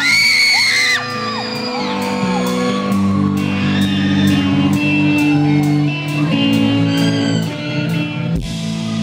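Concert audience screaming and whooping in a large hall over a live band playing the opening of a rock song, held instrumental chords filling in from about three seconds in. The loudest scream comes right at the start.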